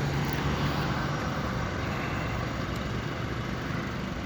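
Steady road traffic noise, with a vehicle engine humming in the first second or so.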